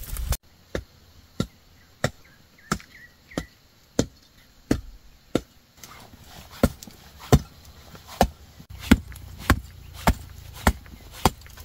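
Steady chopping: single sharp strokes, evenly spaced about every two-thirds of a second.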